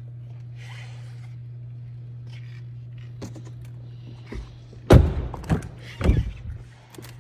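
Audi Q7 SUV doors being handled: a loud thunk about five seconds in, then another about a second later, typical of a heavy car door shutting and latching. A steady low hum runs underneath.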